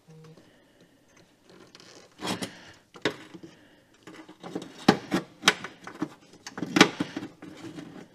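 Hands working on car parts and wiring: irregular clicks, taps and scraping, with a handful of sharp knocks, the loudest about five and seven seconds in.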